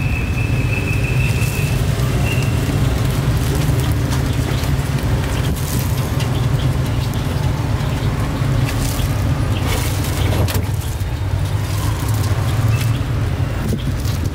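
Busy street-market background noise, dominated by a steady low rumble of engines and traffic, with scattered light clicks and clatters and a brief high tone about a second in.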